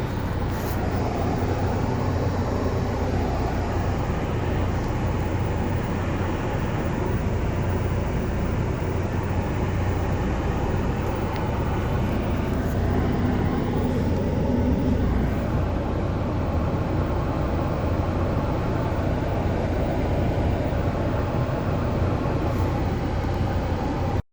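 Steady low rumbling noise, strongest in the bass and holding level throughout, with a faint hum swelling briefly about halfway through.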